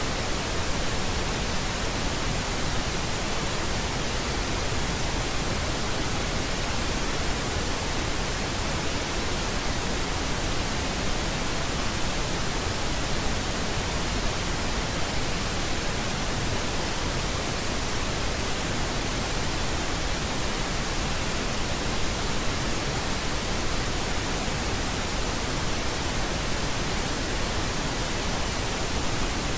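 Steady pink noise: an even, unchanging hiss spread across the whole range, with no events.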